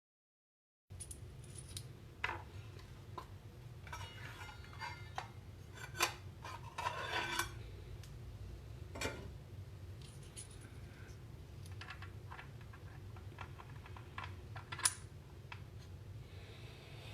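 Small metallic clicks and clinks of a circular saw blade, washer and arbor nut being handled and fitted onto the saw's arbor, busiest a few seconds in, over a low steady hum.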